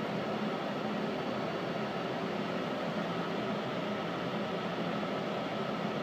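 Steady hum and hiss of a New York City subway car's ventilation and air-conditioning fans, with the train stalled on the line. No clatter of wheels or separate knocks.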